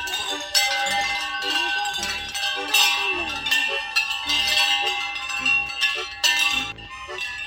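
Background music with steady held notes and bell-like percussion strikes.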